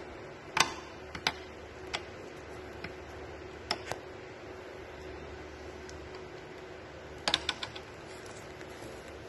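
Sharp clicks and light knocks from The Macallan 72-year-old's lacquered wooden presentation case as it is unlatched and its halves swung open, a scattered few at first and a quick cluster of clicks near the end. A steady hum runs underneath.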